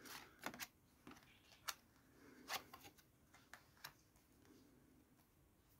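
Tarot cards being handled and laid down on a cloth-covered table: faint scattered clicks and soft slides of card on card, a handful over the first few seconds, then near silence.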